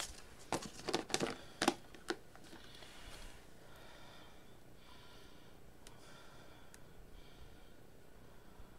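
A few quick knocks and clicks in the first two seconds as a mini steam iron is lifted and set down on the craft table, followed by a faint hiss.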